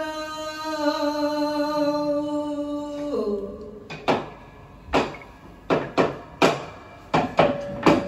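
A female flamenco singer holds one long sung note that drops in pitch and ends about three seconds in. After a short pause, a series of sharp, irregularly spaced percussive strikes begins.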